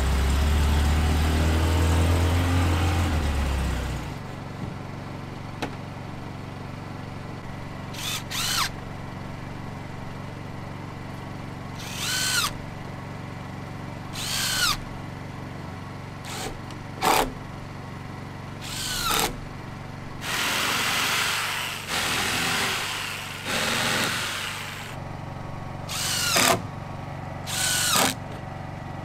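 A vehicle engine runs with a loud low rumble for the first four seconds, then cuts off. After that a Ridgid cordless drill drives screws into wooden one-by boards in about eleven short bursts, each spinning up and winding down, with one longer run of about two seconds partway through.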